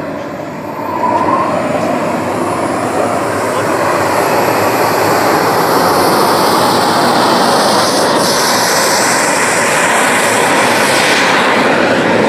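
Model jet turbine engine of a radio-controlled Viper jet running at high power on its takeoff roll: a steady loud roar that comes up about a second in, with a high whine rising in pitch.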